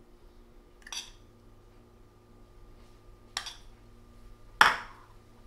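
Metal spoon clinking against a small ceramic bowl of grated cheese as cheese is spooned out: three light clinks, the third, near the end, the loudest.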